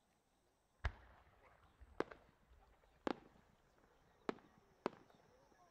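Five sharp, distant fireworks cracks about a second apart, from a 10-gou (about 12-inch) shell with rising effects that bursts small stars as it climbs. The first crack is the loudest and deepest.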